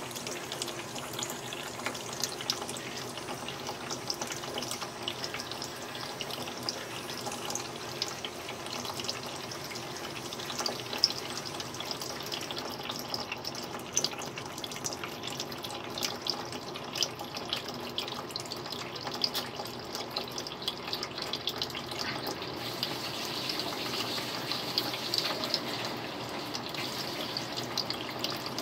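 Thin stream of water running from a kitchen faucet into a stainless steel sink, broken by frequent small irregular splashes and taps as a cat paws at the stream. The running water grows a little louder and brighter over the last few seconds.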